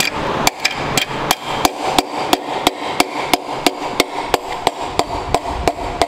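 Mallet knocking steadily, about three sharp blows a second, driving a piston and connecting rod out of a cylinder bore of a Ford Coyote V8 block.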